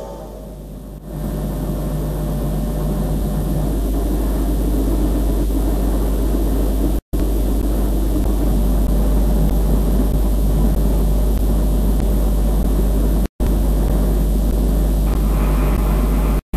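Television static: a steady hiss over a deep hum, softer for the first second. It cuts to silence for an instant about seven and thirteen seconds in and again near the end.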